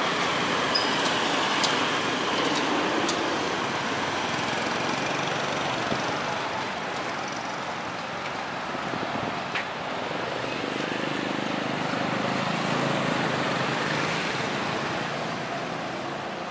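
Street traffic noise: a steady wash of road vehicles passing, swelling and easing as they go by.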